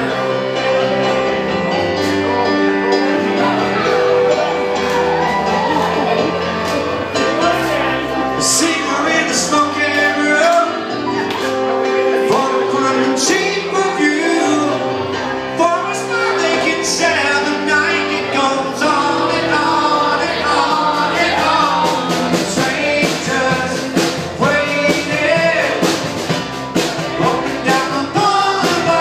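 Live rock band playing an upbeat song with singing, with electric guitar, fiddle and keyboard.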